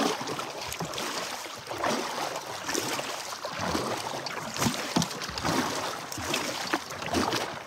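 Kayak paddle dipping and splashing in river water with each stroke as the boat is paddled steadily along.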